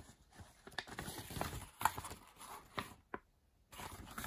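Sheets of a paper instruction manual being handled, rustling and flapping in the hands, with scattered small taps and a brief lull a little after three seconds in.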